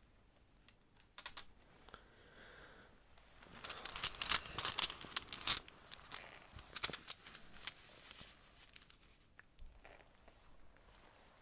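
Close-miked ASMR handling sounds: crinkly rustling with sharp clicks, busiest in the middle and thinning out toward the end.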